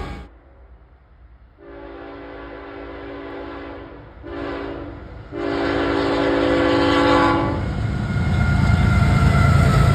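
Locomotive multi-chime air horn sounding a chord in a long blast, a short blast and another long blast: the horn signal for a grade crossing. Then the loud rumble of the train passing, growing louder near the end.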